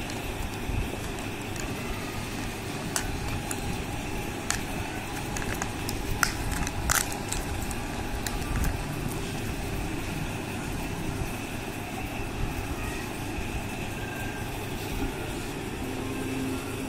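A steady low background rumble, with a few sharp clicks and crinkles from a foil chocolate wrapper and small plastic toy pieces being handled, the loudest about seven seconds in.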